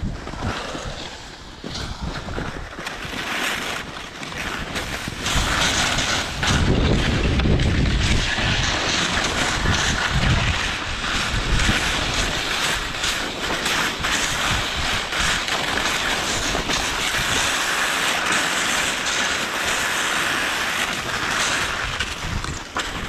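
Skis scraping and carving on steep, hard snow through a series of turns, with wind buffeting the GoPro's microphone. The hiss gets louder about five seconds in, with gusts of low rumble and small knocks from the skis.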